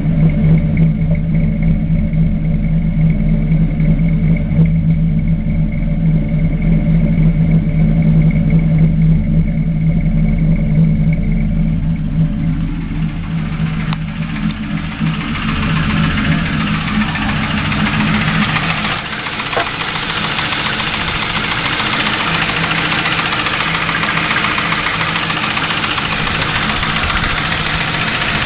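Ford Crown Victoria's 4.6-litre SOHC V8 idling with a knock or tick that appeared after new heads, cams and timing parts were fitted. About halfway through, the low drone gives way to a brighter, hissier running sound.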